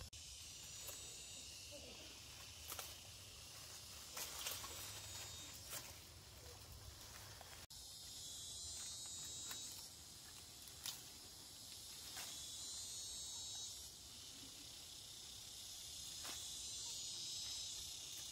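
Insects chirring steadily in a high, finely pulsing band, with a few short knocks and rustles scattered through it.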